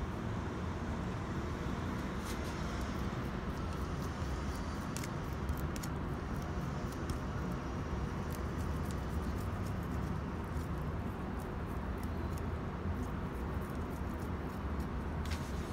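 A steady low background rumble with scattered faint light ticks over it.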